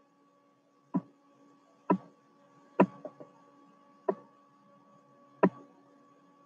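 Sharp single clicks from computer controls, seven in all at uneven intervals, two of them close together near the middle, over a faint steady hum.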